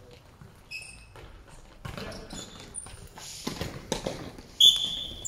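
Futsal play on a sports-hall floor: the ball being kicked and knocked, shoes squeaking on the court, and a loud, short, high-pitched squeal near the end.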